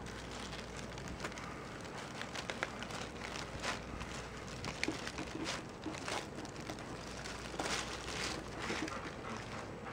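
Tiny kittens scrabbling about in a cardboard box: claws scratching and tapping on cardboard and rustling tissue paper, in a string of short scratches.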